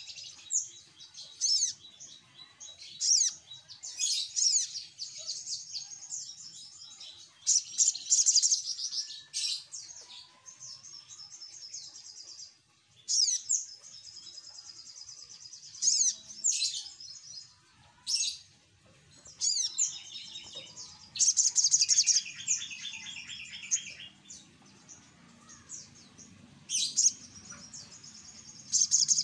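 Sunbird (sogok ontong) singing: rapid high-pitched chirps and twittering trills in repeated short bursts, with a lower, fast rattling trill about three-quarters through.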